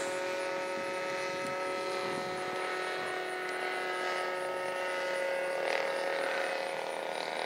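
RC model airplane's motor droning steadily in flight, holding one even pitch.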